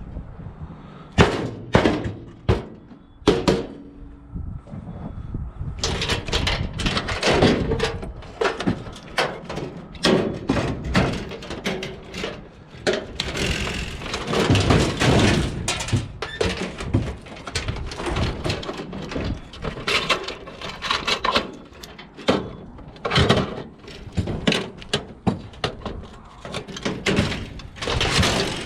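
Repeated thunks, knocks and clatter of scrap being handled and dropped: a few separate hits at first, then near-continuous clatter, busiest about halfway through.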